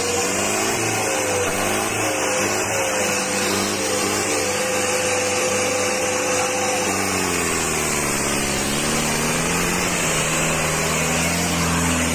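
Sonalika 750 tractor's diesel engine running steadily. About seven seconds in its pitch drops, then climbs back a little near the end.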